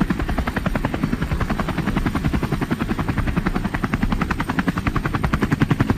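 Helicopter in flight: the rotor's rapid, even blade thumping over the turbine noise, steady throughout and growing a little louder near the end.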